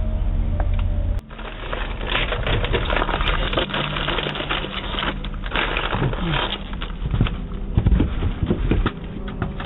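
Crackling, clicking noise picked up by a doorbell camera's microphone, with a low hum that cuts off about a second in.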